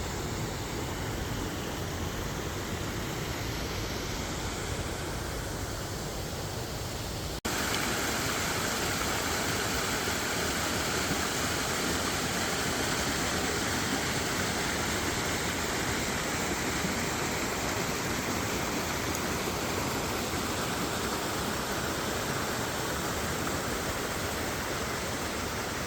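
Lake water pouring down into a sinkhole: a steady, even rushing. It changes abruptly about seven seconds in, from a lower rumble to a brighter, fuller rush.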